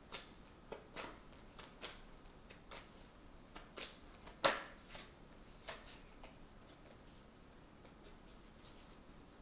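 A deck of tarot cards being shuffled by hand, overhand, giving soft irregular clicks and slaps about two a second. The loudest slap comes about halfway through, and the clicks thin out over the last few seconds.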